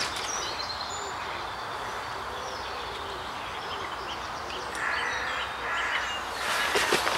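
Lakeside outdoor ambience: a steady background hiss with scattered faint bird chirps. A brief rustle comes about five seconds in, and a louder burst of rustling near the end.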